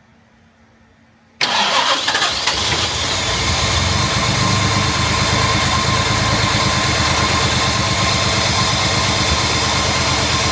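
Jaguar Mk2's XK straight-six engine fires up about a second and a half in and keeps running on choke. The owner suspects the ignition timing is off or it is not firing on all cylinders.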